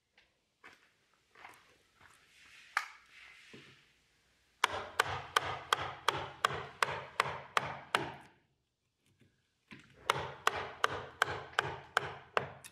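A hand tool striking and cutting into the hardwood stern post in quick, regular strokes, about three a second, in two runs of a few seconds each, with softer scraping before them.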